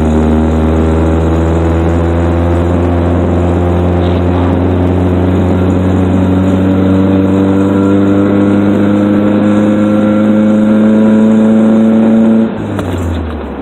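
Toyota 22RE four-cylinder engine of a pickup truck pulling under way, its revs climbing slowly and steadily, then falling away suddenly near the end as the throttle is let off.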